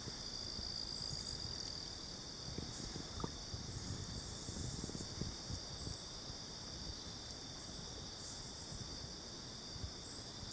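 Steady, high-pitched chorus of evening insects, crickets and the like, over a low rumble of water and handling noise with a few small knocks.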